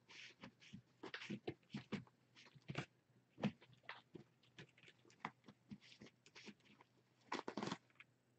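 A kitten scrabbling on the floor as it wrestles and bats a white cloth: soft, irregular taps, scratches and rustles, with a busier flurry near the end.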